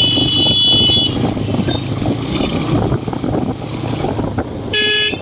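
Royal Enfield Hunter 350's single-cylinder engine running under way, with wind and road noise. A high, steady horn beep sounds for about the first second, and a short horn honk sounds near the end.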